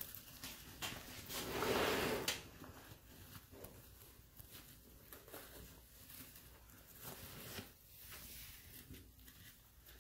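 Scratchy rustling and scraping in a plastic rodent tub with wood-shaving bedding, loudest for about a second early on, then scattered small scrapes and clicks.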